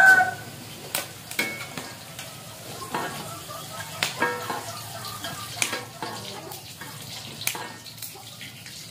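Green vegetables sizzling in a wok on a wood-fired stove, with a metal spatula stirring them and scraping and clinking against the wok in repeated sharp strokes.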